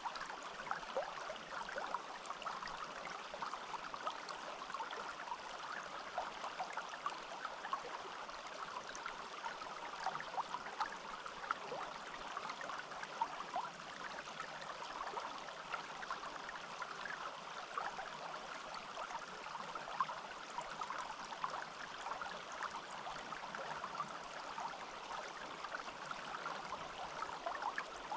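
Small forest stream trickling and gurgling steadily over stones, a constant splashing babble with many small water plinks.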